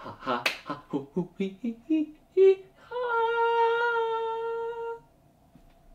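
A man singing a wordless made-up jingle as stand-in 'thinking music': a quick run of short syllables stepping down in pitch, then one long held final note that ends the tune about five seconds in.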